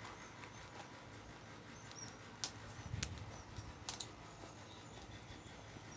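A few sharp clicks and taps, loudest about three seconds in, over faint high chirps and a low steady background.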